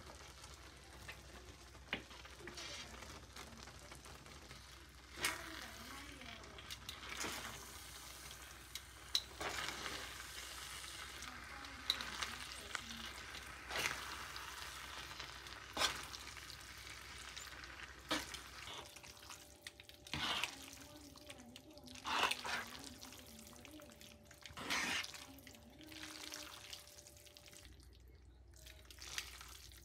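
Spaghetti being tossed in a pan of simmering white sauce: a steady sizzling, bubbling haze with repeated clicks and scrapes of metal tongs against the nonstick pan, and a few louder scraping bursts in the last third.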